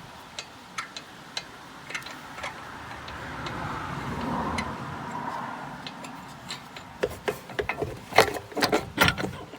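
Hand tools on a 1998 Ford Explorer 4x4's front hub. Sharp clicks about every half second, in the manner of a ratchet backing out the last hub bolt, then a scraping rub. Near the end comes a quick flurry of loud metal knocks and clanks as the hub bearing assembly is worked free of the knuckle.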